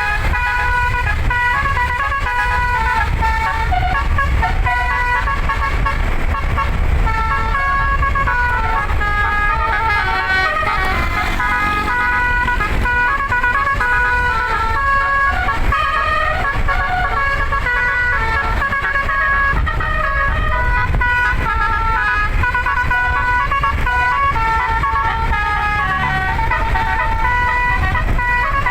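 Telolet basuri musical air horn, an 11-note set, playing a tune of short stepping notes without a break, over a steady low rumble.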